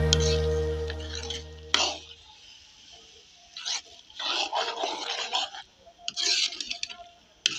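Background music fades out over the first two seconds. Then a metal ladle scrapes and stirs thick saag in a metal kadhai in several short bursts, with a single knock of the ladle against the pot earlier on.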